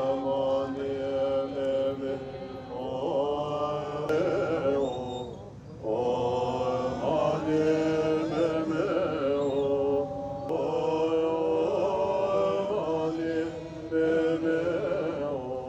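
Buddhist prayer chanting: a voice holding long, drawn-out notes in phrases a few seconds long, with brief pauses between them.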